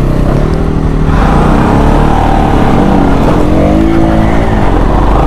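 Bajaj motorcycle's single-cylinder engine running under load while climbing a rocky dirt trail, its pitch rising and falling as the throttle is worked.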